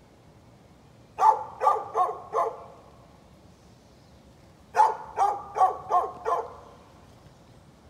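A dog barking in two quick runs: four barks starting about a second in, then five more near the five-second mark, the barks coming about two or three a second.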